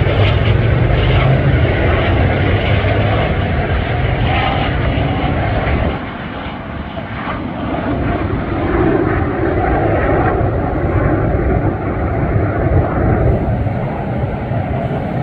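Small airplane engine droning steadily as the aircraft flies overhead. The drone drops about six seconds in, then builds again.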